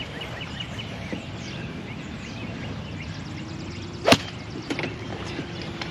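A golf club striking the ball: one sharp crack about four seconds in, over steady outdoor background noise.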